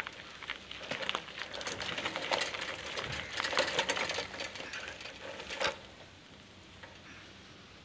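Footsteps crunching on loose crushed-stone gravel, a dense irregular run of crunches and clicks that stops about six seconds in.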